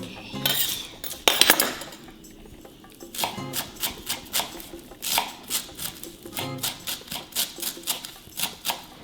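Knife chopping on a cutting board in a steady rhythm, about three strokes a second, over background music, with a louder clatter about a second in.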